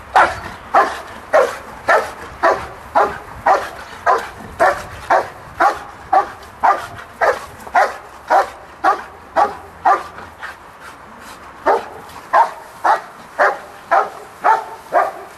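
Belgian Malinois barking steadily in a regular rhythm, about two barks a second, with a short pause about two-thirds of the way through before the barking resumes.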